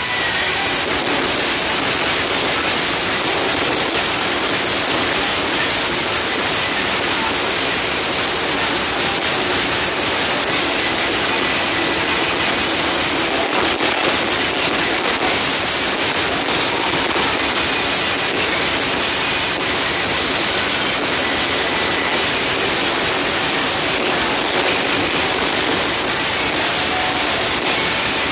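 Loud club playback music so distorted by an overloaded phone microphone that it comes through as a steady harsh hiss-like roar, thin in the bass, with only faint traces of tune showing through.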